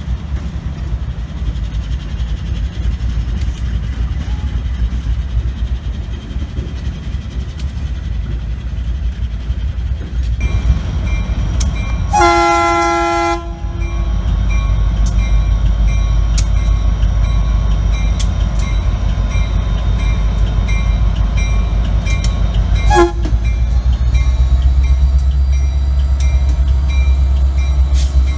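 Diesel freight train rolling past with a steady low rumble. An approaching Norfolk Southern EMD SD60M locomotive then sounds its multi-chime air horn in one blast of about a second and a half, about twelve seconds in, and a brief toot about twenty-three seconds in. Its engine drones as it passes, with the wheels clicking over rail joints.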